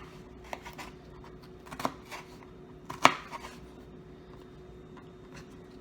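Kitchen knife dicing bell pepper on a cutting board: a few sharp, irregularly spaced chops, the loudest about three seconds in.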